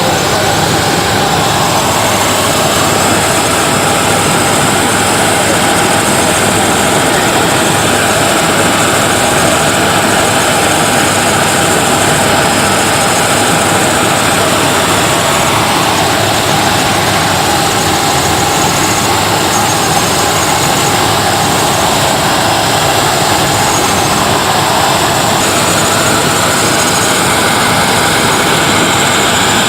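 Helicopter turbine engine and rotor noise heard steadily from inside the cabin in flight, a loud, even roar with a steady high whine.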